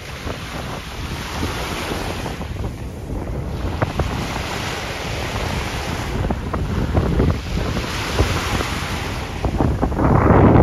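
Small waves washing onto a sandy shore, the hiss of the surf swelling and fading every few seconds, with wind buffeting the microphone.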